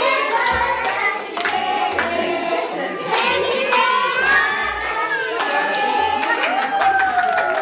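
A group of people singing together, with hand claps scattered through the singing.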